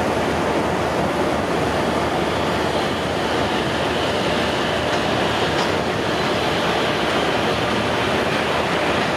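WCAM 2P dual-current electric locomotive running light at slow speed, a steady, even running noise with no horn or distinct clanks.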